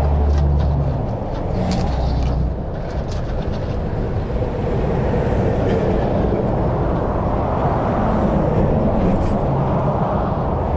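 Highway traffic rushing past, swelling and fading as vehicles go by, with a few light clicks in the first few seconds.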